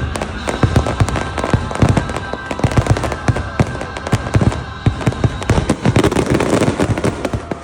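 A rapid barrage of firework bursts, many sharp bangs in quick succession, over the show's music soundtrack. The bursts stop abruptly near the end.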